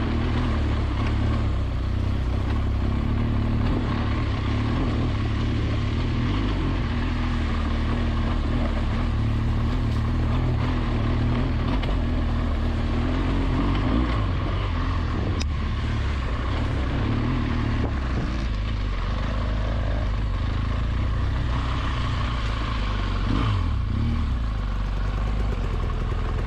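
BMW R1200GS Adventure's boxer twin engine running at low, fairly steady revs while riding, with small changes in engine speed, under a steady rush of wind and tyre noise.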